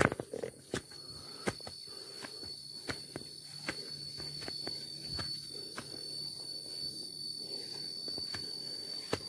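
Footsteps walking along a path: irregular crunching steps with a sharp click right at the start. Under them, from about a second in, an insect keeps up a steady high-pitched trill.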